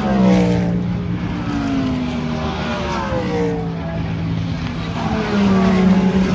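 Race cars passing at speed one after another, each engine note dropping in pitch as it goes by. A prototype fades away at the start, and a GT car comes up loudest near the end.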